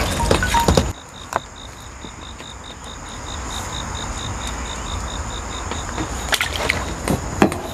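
Water splashing around a landing net holding a hooked crucian carp for about the first second. Then an insect chirps in an even pulse of about four a second, with a few clicks near the end as the fish is handled in the net.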